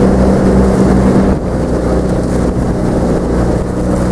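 Outrigger boat's engine running with a steady hum under rushing water and wind on the microphone; the hum's main note weakens slightly about a second and a half in.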